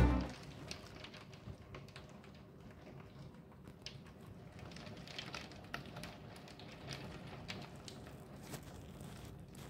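Small hail pellets ticking irregularly against the window and sill, heard faintly from behind the glass over a low hiss of falling precipitation.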